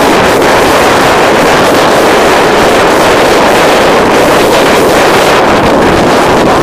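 Loud, steady rush of wind across the camera's microphone, from the airflow of a paraglider in flight.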